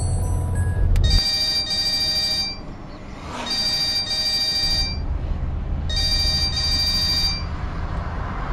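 Mobile phone ringing with an electronic double-pulse ring, three rings about two and a half seconds apart.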